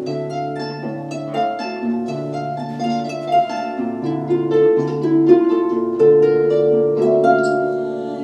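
Celtic harp playing a melody of plucked notes that ring on, over lower bass notes.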